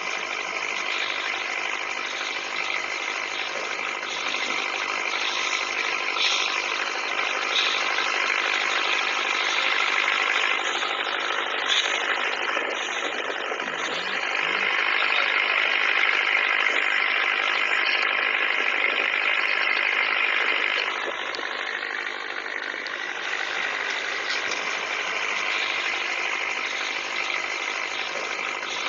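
Toy pop-pop (otok-otok) steam boat engine running with a fast, steady putt-putt rattle, growing louder about halfway through and dropping back a few seconds later.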